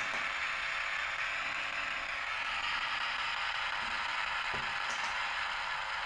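Portable radio tuned to medium wave, around 700 kHz, giving a steady hiss of static. It is held over a switched-mode power supply board as a sniffer, its noise a clue to whether the supply is oscillating. There are faint clicks about four and a half and five seconds in.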